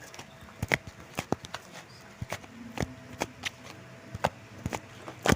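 Clay slime being squeezed and pressed by hand, giving irregular sticky clicks and pops, the loudest near the end.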